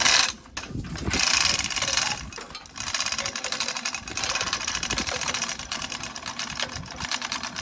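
Lifting gear lowering a heavy component onto an International A414 tractor. A clank at the start is followed by a fast, steady mechanical rattle while the part goes down.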